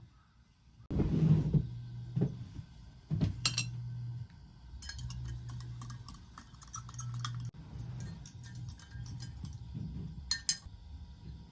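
Kitchenware clinking and clattering as food is prepared: a loud clatter about a second in, a few knocks, then a long run of light metal-on-glass or metal-on-dish clinks.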